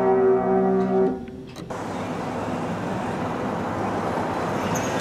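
A held piano chord that stops about a second in, followed by steady city street noise, an even rush of traffic.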